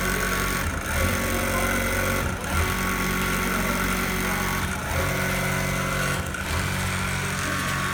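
Aurora AAS-800-450 programmable-pattern industrial sewing machine running, a steady mechanical hum that dips briefly every second or two.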